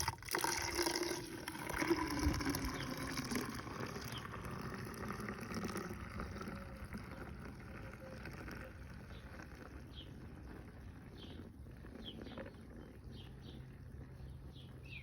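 Soapy homemade laundry liquid being poured into a container: a splashing pour for the first several seconds that thins out to a soft trickle.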